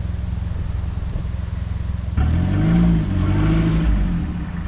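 Mitsubishi Triton ute's engine running steadily. About two seconds in it gets louder, the revs rising and falling as the ute tries to drive through slippery mud.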